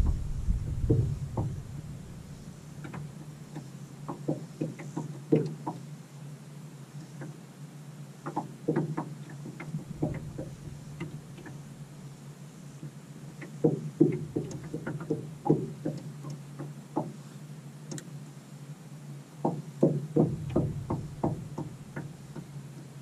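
Irregular clusters of short clicks and knocks over a steady low hum: fishing tackle and boat sounds while a hooked chain pickerel is played on rod and reel.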